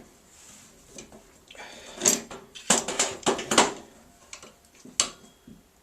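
Sheet-metal body panels being handled and offered up: a run of metallic knocks, clatters and scrapes about two and three seconds in, and one sharp knock near the end.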